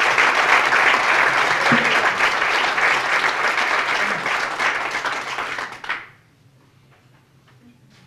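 Audience applauding, many hands clapping densely. It stops abruptly about six seconds in.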